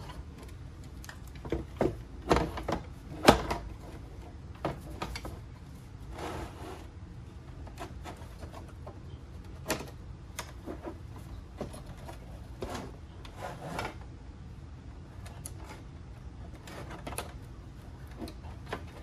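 Scattered clicks, knocks and rattles as the metal housing, fan panel and wiring of an LED aquarium light are handled and taken apart, with the loudest knocks about two to three and a half seconds in.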